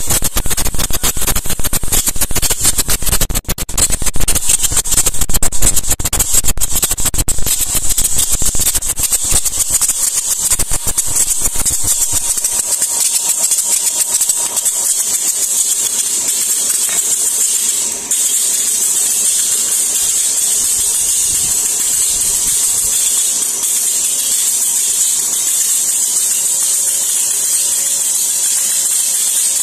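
Incense cone making machine running: a dense mechanical clatter for about the first twelve seconds, then a steady high hiss with a faint hum.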